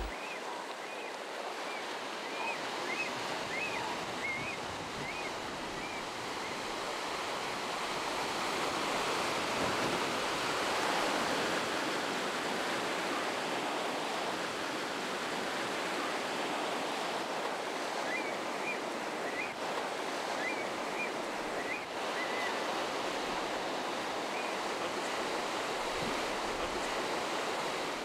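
Ocean surf washing steadily over a rocky shoreline, swelling a little in the middle. Two runs of short high chirps cut through the surf, one a second or so in and another around two-thirds of the way through.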